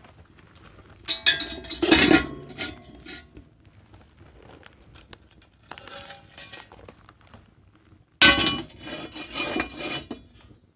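Metal cookware clattering and clinking: two bursts of knocks with short metallic ringing, starting suddenly about a second in and again about eight seconds in, with a few fainter clinks between.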